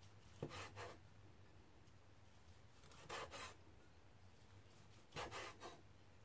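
Cleaver slicing through roast char siu pork on a wooden cutting board: three short cuts about two seconds apart, each a knife drawn through the meat and meeting the board.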